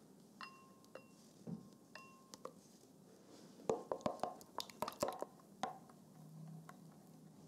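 A wooden spoon and spatula clinking against glass bowls: a few light clinks, each with a short ring, in the first two and a half seconds, then a busier run of knocks and scrapes from about three and a half to nearly six seconds in as the spoon stirs cream into melted gelatin in a small glass bowl.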